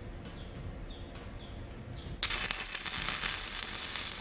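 Stick welding arc struck about two seconds in, crackling and hissing steadily for a few seconds as a 7018 rod lays a tack weld.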